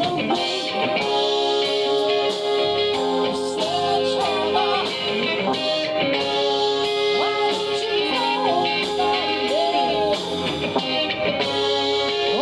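Music: a song with guitar and drums, and a singing voice whose wavering line runs over held notes.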